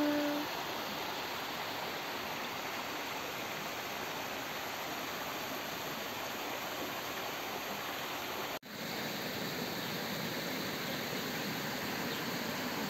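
Steady rush of running water, cutting out for an instant about two-thirds of the way through.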